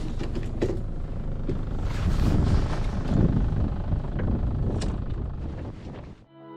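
Wind buffeting the microphone in the open, a heavy low rumble with scattered knocks, fading and cutting off near the end.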